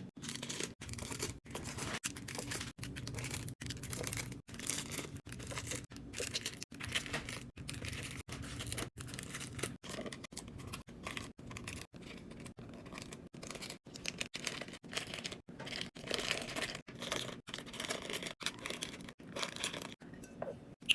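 Crinkling and tearing of plastic and paper food packaging as snacks are unpacked and restocked, broken by many very short silent gaps.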